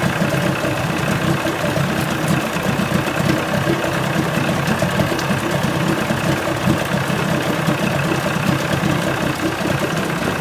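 1980 Chrysler 45 hp two-stroke outboard running at a steady idle, apparently running fine despite its crank-no-start complaint.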